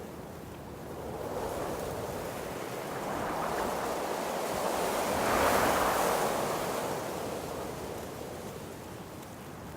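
Wind blowing through trees, a steady rush of leaves that swells into a strong gust about halfway through and then dies back down.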